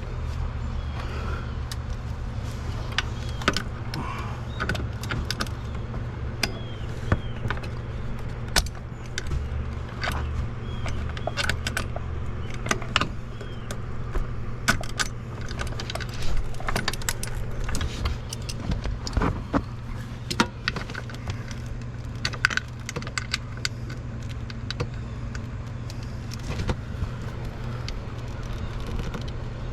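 Metal hand tools clinking and rattling in irregular clicks as a socket and vise-grips are worked against a stuck bolt on a Kawasaki Mule utility vehicle, over a steady low hum.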